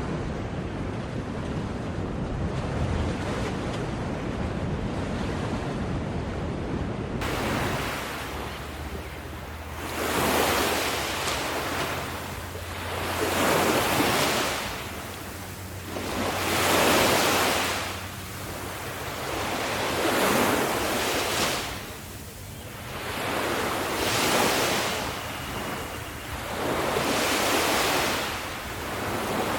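Ocean surf. A steady wash of sea noise changes abruptly about seven seconds in to waves breaking and washing in, swelling and fading every three to four seconds.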